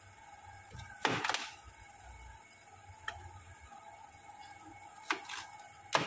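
Kitchen knife cutting canary melon pieces on a plastic tray: a few short crunches and knocks of the blade going through the rind and hitting the tray, the loudest about a second in.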